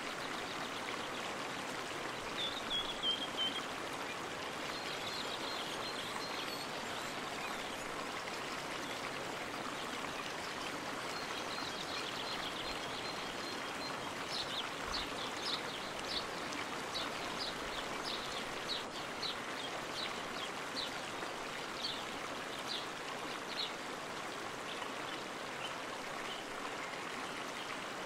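Steady rush of running water from a stream or small waterfall. Birds chirp over it: a short trill about three seconds in, then a run of quick high chirps through the middle.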